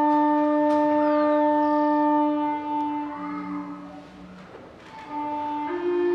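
Traditional Andean wind instrument blown in long, horn-like held notes. One note sustains and fades about halfway, a short lower note follows, then a new note starts and steps up in pitch near the end.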